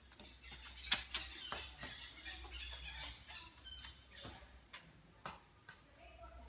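Scattered light footsteps and taps on wooden steps and stone floor, the loudest about a second in, with faint short high chirps in the background.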